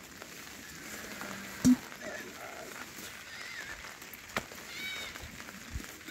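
Goats bleating a few times, short arching calls, with one sharp knock about a second and a half in and a smaller click later.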